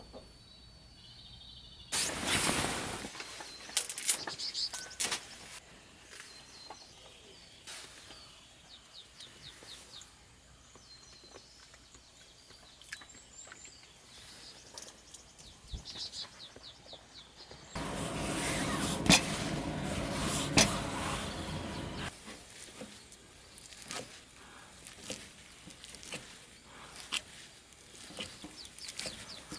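Small birds chirping, with scattered clicks and knocks of things being handled. There is a short loud rush of noise about two seconds in, and a steadier, louder rush for about four seconds past the middle.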